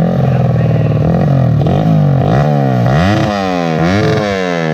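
Underbone (bebek) motorcycle engine running at a steady idle, then blipped several times from about halfway in, its pitch rising and falling quickly with each rev.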